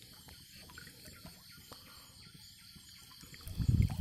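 Quiet outdoor background with a steady high-pitched hiss and faint ticks, broken about three and a half seconds in by a short, heavy, low thump.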